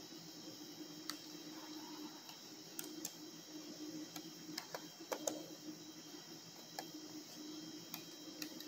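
Faint, irregular clicks from the laptop's controls as partitions are selected, deleted and the warning confirmed, over a steady low hum.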